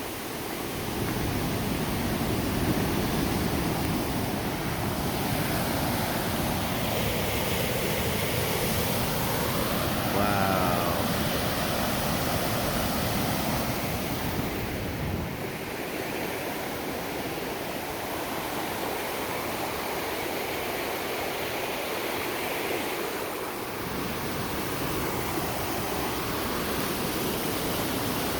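Steady rushing roar of a waterfall on the McKenzie River, a dense even wash of falling water. Its deep rumble thins out about halfway through.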